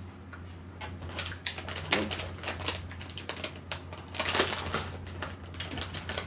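Crinkling and rustling of a small plastic snack wrapper being handled and opened by hand, a run of irregular sharp crackles.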